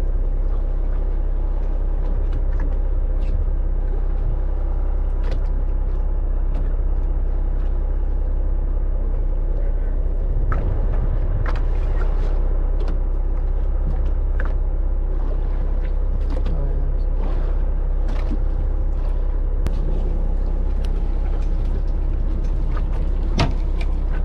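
Fishing charter boat's engine running steadily with a low drone, with scattered light knocks and clicks on deck.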